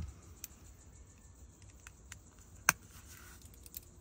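A few light clicks of a 1/4-inch drive ratchet, extension and 7 mm socket being handled and fitted together, with one sharp click about two-thirds of the way through.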